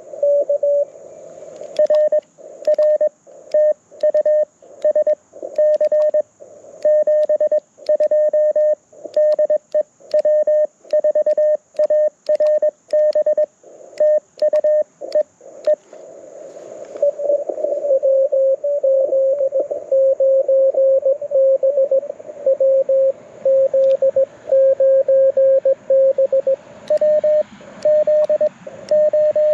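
Morse code (CW) tones from a ham radio transceiver through a small speaker. A clean single-pitch tone is keyed on and off in dits and dahs for about half the time. Then a slightly lower-pitched keyed signal with background hiss answers, and the higher tone resumes near the end: two stations exchanging CW.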